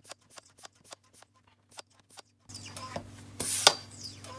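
High-pressure PCP hand pump being worked to charge a Benjamin Bulldog .357 air rifle: fast, evenly spaced clicks of the pump strokes, about six a second in fast-forward, then, at normal speed, one heavier stroke with a rush of hissing air about three and a half seconds in.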